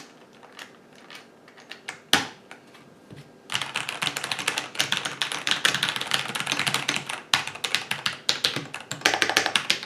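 Typing on a mechanical keyboard freshly fitted with ISA-profile keycaps. A few scattered key clacks give way to fast, continuous typing from about three and a half seconds in.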